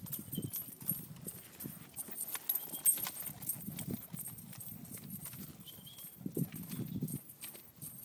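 Hoofbeats of an American Saddlebred trotting on the dirt footing of a round pen: a run of dull, uneven thuds, louder around six to seven seconds in as the horse passes nearer.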